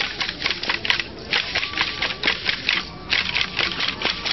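Rattles and wooden sticks of masked Yaqui chapayeka (fariseo) dancers clattering as they run and dance, in irregular bursts several times a second.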